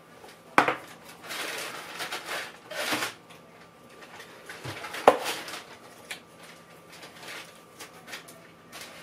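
Unpacking drawer dividers from their box: cardboard and paper rustling, with sharp knocks as the pieces are handled, the loudest about five seconds in.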